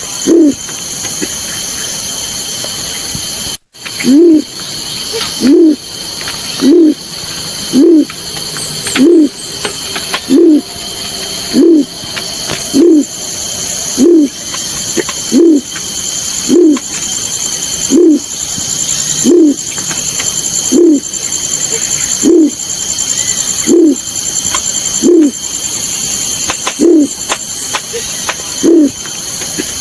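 Recorded call of the bird known locally as balorinay, played as a hunting lure: a low, short hooting note repeated about every second and a half, around twenty times. The audio drops out for a moment a few seconds in.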